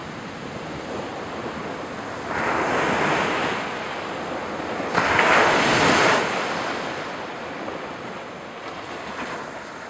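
Ocean surf on a beach: a steady wash of sea noise with two waves breaking and rolling in, the first a little over two seconds in and a louder one about five seconds in, then slowly fading away.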